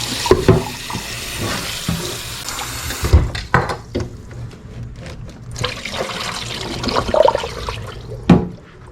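Hot water pouring into a cooking pot, stopping abruptly about three seconds in; after it come several light knocks and clicks.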